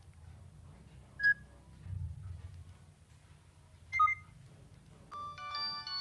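Nokia 6600 mobile phone sounding through its small speaker: a short beep about a second in and another brief beep about four seconds in, then a new multi-note polyphonic ringtone tune starts about five seconds in.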